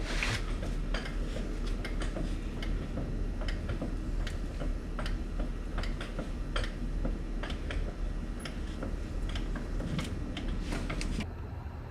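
Hydraulic jack being pumped by hand, giving a run of light, uneven clicks about two or three a second.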